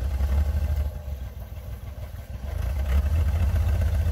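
Vehicle engine running with a low rumble, growing louder about two and a half seconds in.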